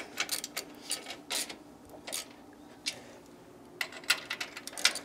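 Socket ratchet clicking in short runs as steel bolts are tightened, with scattered metal clinks. There is a pause of about a second and a half in the middle.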